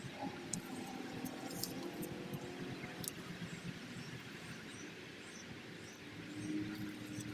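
Outdoor background noise: a steady low rumble like distant traffic, with a few sharp clicks in the first few seconds and faint high chirps scattered through.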